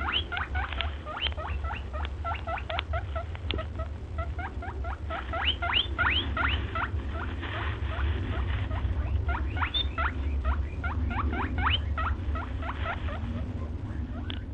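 Rapid high squeaks from a small animal, several a second in runs with short lulls, each one rising quickly in pitch, over a low steady hum.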